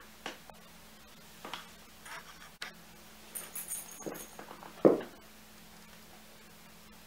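A kitten with cerebellar hypoplasia scrambling clumsily on carpet: scattered soft paw scuffs and knocks, then a louder thump near the end as it tumbles over onto its side. A brief high jingle comes in the middle.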